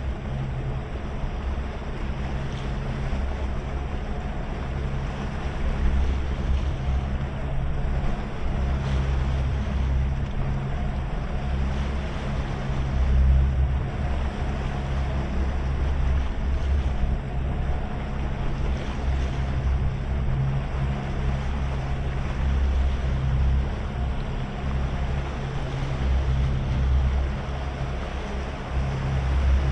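Twin outboard engines running steadily under towing load, with water rushing along the hull and wind buffeting the microphone in gusts.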